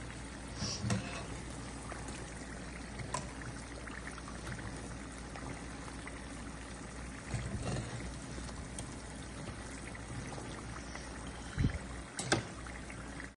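Mini samosas deep-frying in a pan of hot oil: a steady sizzle and bubbling. A few light clicks sound over it, the two loudest near the end.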